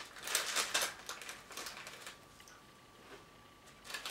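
Candy wrapper crinkling in short bursts as it is handled and opened, busiest in the first second, quieter in the middle, with another crinkle near the end.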